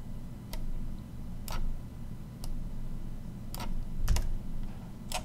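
Scattered single clicks from working a computer's mouse and keys, about six of them a second or so apart, over a low steady hum.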